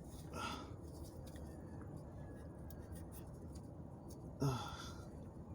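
Faint small clicks and handling noises of hands working a new rubber oil cooler gasket onto the oil cooler, with a short vocal grunt about four and a half seconds in.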